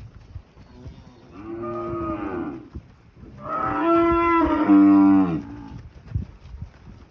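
Cattle mooing twice: a shorter moo, then a longer, louder one that drops in pitch partway through.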